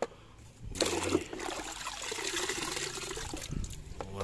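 Water splashing and trickling in a tub as a muddy toy is washed in it, starting about a second in.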